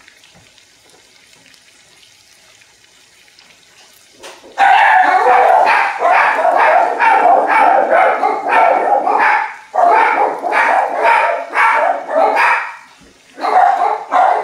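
Faint sizzle of potatoes frying in oil. About four and a half seconds in, a dog starts barking loudly and repeatedly, about two to three barks a second, with two short pauses.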